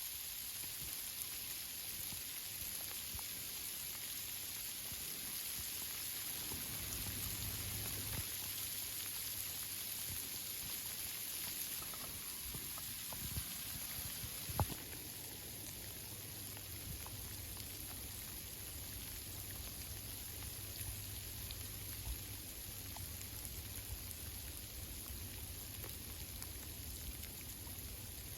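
Steady rain falling on the leaves of the treetops: an even hiss with scattered single drops ticking through it, and one sharper drop about halfway through.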